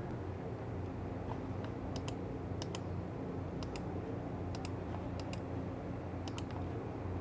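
Logitech G603 mouse button microswitch clicked repeatedly: about six sharp double clicks spread over a few seconds, over a steady low hum.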